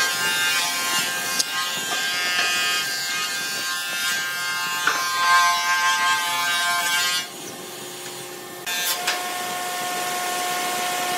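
Corded electric drill running and boring holes into a pine board, its motor whine shifting in pitch as the bit works. It drops away briefly about seven seconds in, then a steady motor hum carries on to the end.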